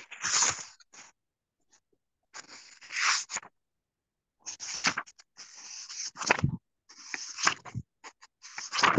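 Irregular bursts of crackling, rustling noise close to the microphone, about six clusters coming and going.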